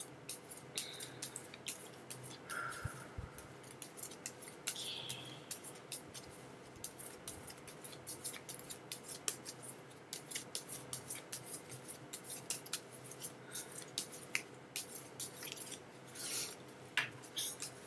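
A deck of tarot cards being shuffled by hand, the cards clicking and slapping against each other in quick, irregular runs of several clicks a second.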